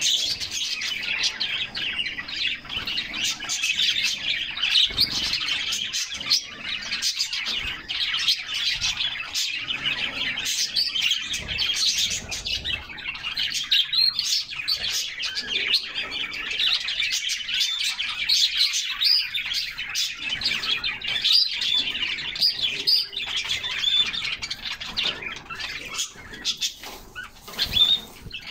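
Several canaries chirping and singing continuously in quick, overlapping high trills. Brief sharp noises come here and there among them.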